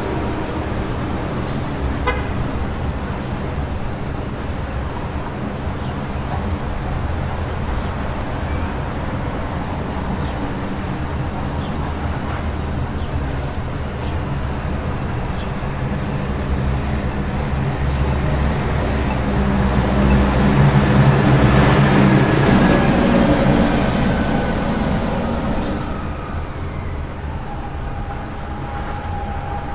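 Manhattan street traffic: a steady rumble of engines and tyres, swelling as a heavier vehicle passes about twenty to twenty-four seconds in.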